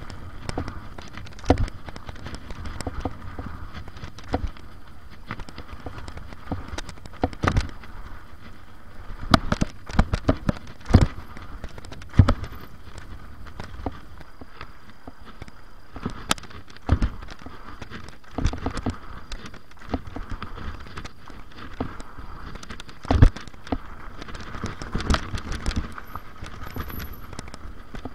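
Mountain bike ridden over a dirt track with jumps and rollers: steady tyre noise on loose dirt and gravel, broken by irregular sharp knocks and rattles as the bike clatters over the bumps and lands.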